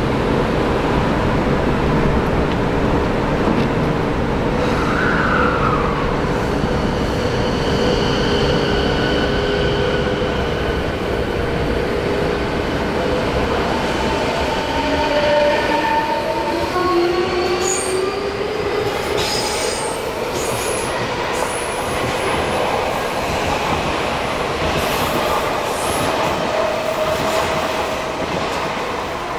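Odakyu electric commuter train: steady electrical tones while it stands at the platform, then the train running past at close range, its traction motor whine rising in pitch about halfway through as it gathers speed, with wheels running over the rails and some clicks.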